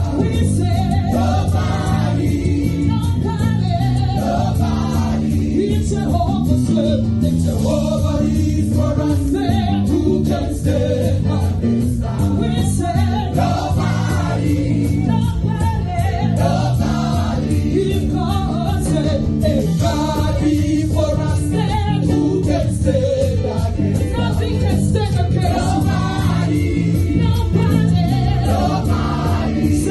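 Worship team singing a gospel praise song in chorus, with voices blending over a steady band accompaniment.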